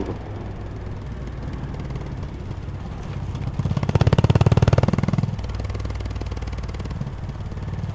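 Honda CB350 H'ness single-cylinder motorcycle engine running at road speed. It swells louder with a pulsing beat for about a second and a half near the middle, then settles back to a steady drone.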